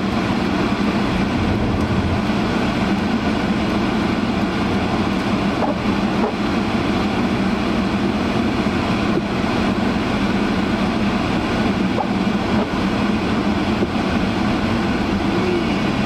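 Steady rushing of a Honda CR-V's defroster fan blowing at full blast inside the cabin, mixed with the car's driving noise as it rolls over snow.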